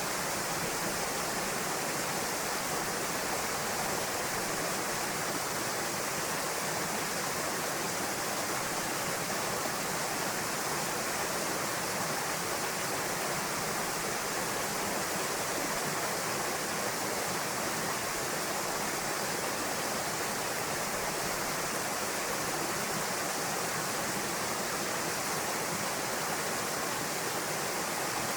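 Small waterfall pouring into a rock pool: steady, unbroken rushing and splashing of falling water.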